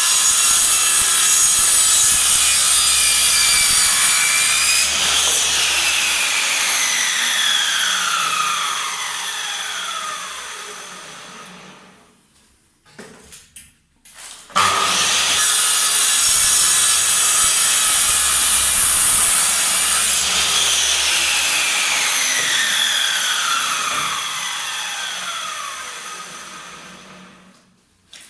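Power miter saw running at full speed, then switched off about five seconds in, its blade and motor winding down in a falling whine that fades out over several seconds. About halfway through it starts again suddenly, runs, and winds down the same way near the end.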